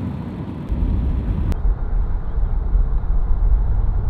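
A moving car's road and engine noise heard inside the cabin. A deep rumble gets noticeably louder a little under a second in, and there is a single short click about a second and a half in.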